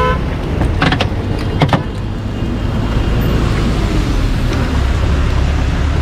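Low steady rumble of a car on the road, with two sharp clicks, about a second in and again just before two seconds.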